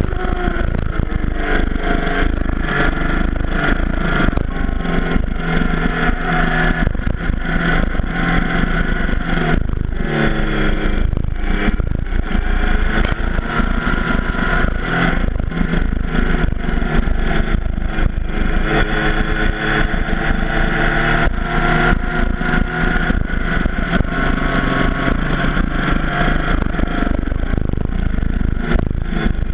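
Yamaha FJ-09's 847 cc inline-three engine pulling hard around a track lap, its pitch climbing and dropping with throttle and gear changes, a deep drop and climb about ten seconds in.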